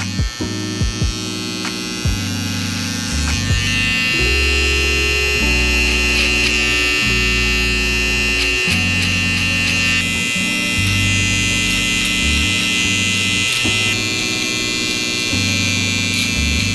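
Electric hair clipper buzzing steadily while trimming a mustache clipper-over-comb, the buzz coming in a few seconds in. Background music with slowly changing bass chords plays throughout.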